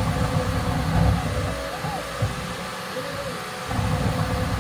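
Bambu Lab X1 Carbon 3D printer printing in Ludicrous speed mode: the stepper motors whine in short rising and falling tones as the toolhead darts across the bed. Under them is a low rumble that swells through the first second and a half and again near the end.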